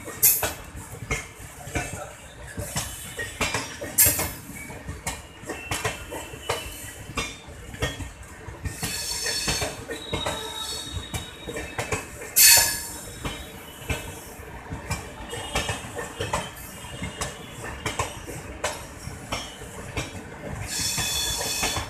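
Brahmaputra Mail express coaches rolling past at close range: a steady, rapid clatter of wheels over rail joints, broken by sharp metallic wheel squeals every few seconds, the loudest about twelve seconds in.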